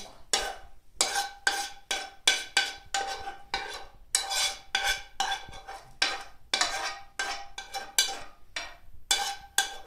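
A metal spoon repeatedly scraping and knocking against a frying pan, about three strokes a second, the pan ringing with each stroke, as fried onion and carrot are scraped out of it.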